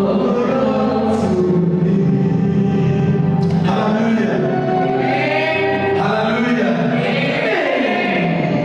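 Gospel choir singing with musical accompaniment, a steady continuous song.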